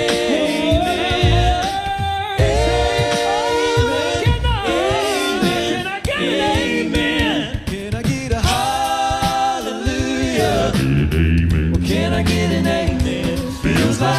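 Male a cappella vocal group singing wordless held chord harmonies, with mouth-made drum beats underneath. A deep bass voice holds a low note near the end.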